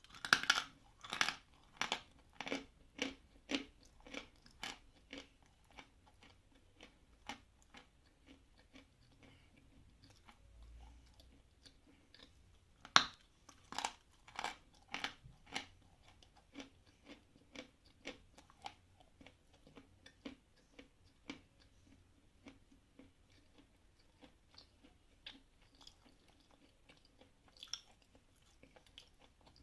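A person biting off pieces of Khrapovsky edible chalk and chewing them, with crisp crunches about twice a second. The crunches soften as the chalk turns to a paste. A second sharp bite about halfway through starts another run of crunching.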